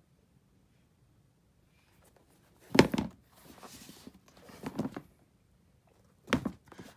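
Handling noise from a hand grabbing and rubbing leather sneakers close to the phone's microphone: a few short rustles and bumps, the loudest about three seconds in, others near five and six and a half seconds.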